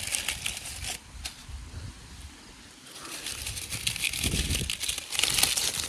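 Dry corn stalks and husks rustling and crackling as they are pushed aside and handled, in an irregular run of crisp crackles that is busiest near the start and again over the last three seconds.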